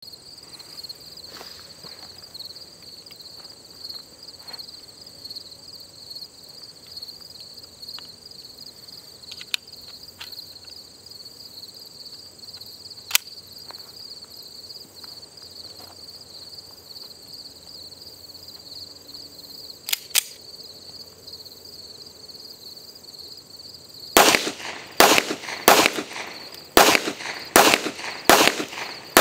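Steady high buzz of insects with a few faint clicks, then near the end a rapid string of .45 ACP shots from a Kimber Tactical Custom II 1911 pistol, about two a second, firing 230-grain full-metal-jacket rounds.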